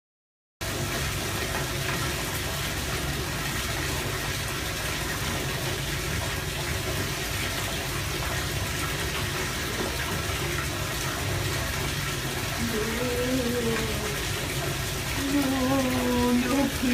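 Water running steadily from a bath tap, filling the tub. A voice comes in briefly over it near the end.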